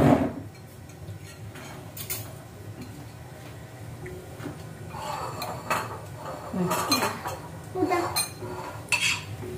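Metal spoons clinking and scraping against ceramic dinner plates while eating, a few light clinks at first and more frequent ones from about halfway through.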